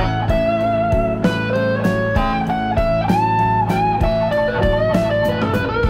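Background music: an electric-guitar blues track over a steady beat.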